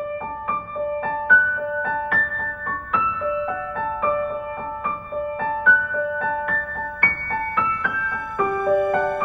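Background music: a gentle piano melody of evenly paced notes, about two a second.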